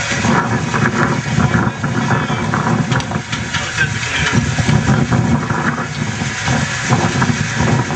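Off-road Jeep's engine running steadily as the Jeep crawls down a steep rocky drop.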